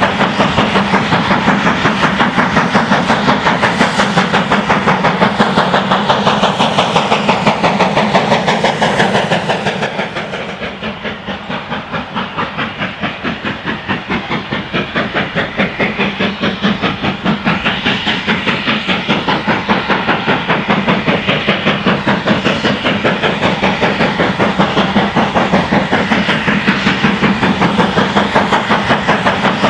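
GWR Manor class 4-6-0 No. 7822 Foxcote Manor, a two-cylinder steam locomotive, working under steam with a short train, its exhaust beating in a quick, even rhythm. The beats grow fainter about ten seconds in, then louder again towards the end as the locomotive approaches.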